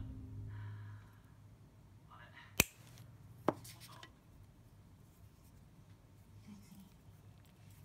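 Two sharp snips about a second apart: small steel end-cutting nippers clipping the tag ends of fishing line at a finished nail knot.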